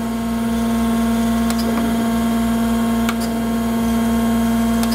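Acer AGS-1020 hydraulic surface grinder running under power with its table stroking: a steady machine hum with a faint click about every second and a half.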